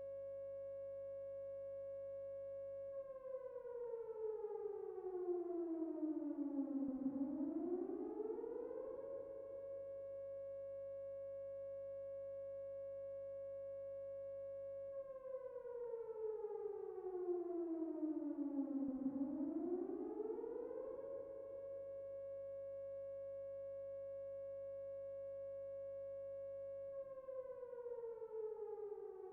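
Tornado warning siren sounding a steady tone, which twice falls in pitch over about four seconds and climbs back up, then starts falling again near the end. It is slightly louder during the falls.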